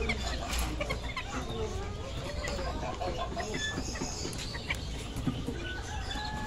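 Several caged chickens clucking, short calls overlapping one another, with one longer, higher call near the end.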